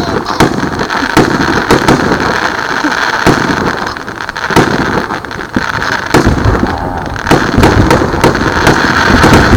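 Fireworks going off: a steady stream of booms and crackling pops, growing denser and louder about six seconds in.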